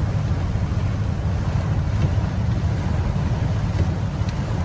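Inside a car driving through heavy rain: a steady low road rumble under an even hiss of rain and tyre spray from water on the road.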